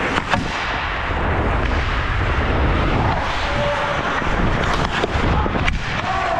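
Ice hockey heard from a helmet-mounted action camera: skate blades scraping and carving on the ice and air rushing over the microphone as a steady low rumble, with several sharp clicks of sticks and puck.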